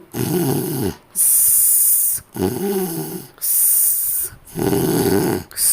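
A person snoring: three rough, low snores on the in-breath, each followed by a hissing out-breath, in a slow even rhythm of about one breath every two seconds.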